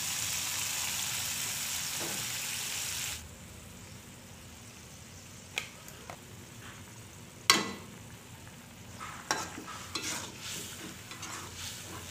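Red sauce sizzling loudly in a hot wok as water is poured in; the hiss cuts off suddenly about three seconds in. After that it simmers quietly while a metal spatula knocks and scrapes against the wok, with one sharp knock midway and a run of stirring scrapes near the end.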